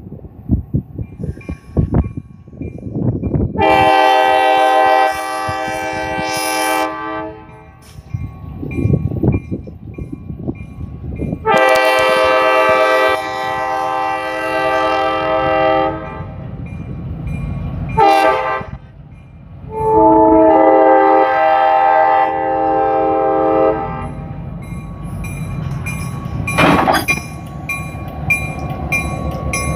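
Diesel switcher locomotive #8618 blowing its horn in the grade-crossing pattern: two long blasts, a short one and a long one. Its engine rumbles underneath.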